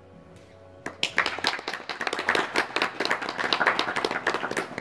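Spectators clapping, starting about a second in, with many separate sharp claps.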